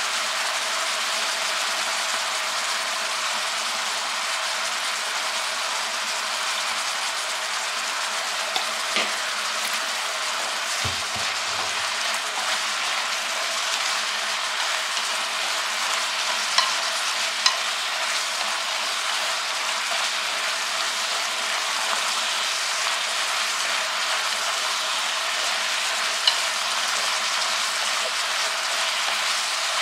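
Meat and onion sizzling steadily as they fry in an electric hot pot, stirred with wooden chopsticks, with a few sharp clicks as the chopsticks knock against the pot.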